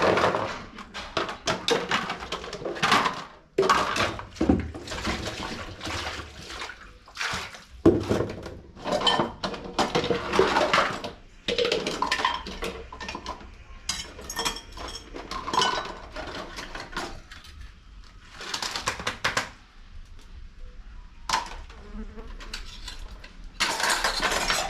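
Pots and metal utensils being hand-washed: irregular clattering, knocking and scrubbing as the dishes are handled and scoured.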